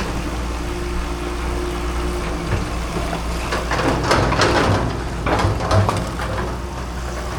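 Excavator's diesel engine running steadily, with a few loud knocks and scrapes about four and five and a half seconds in.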